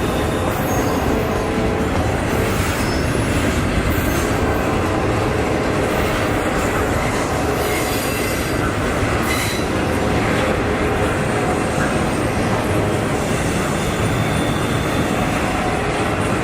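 Norfolk Southern freight cars rolling past at close range: a steady, loud rumble of steel wheels on rail, with faint high wheel squeal coming and going.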